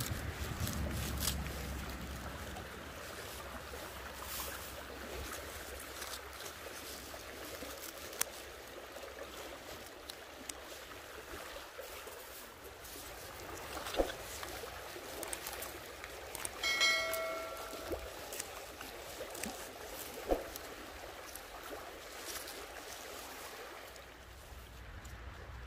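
Stream running steadily beside a few sharp snips of scissors cutting wild garlic stems, the clearest about 14 and 20 seconds in. A short steady tone, about a second long, sounds about 17 seconds in, and wind rumbles on the microphone during the first two seconds.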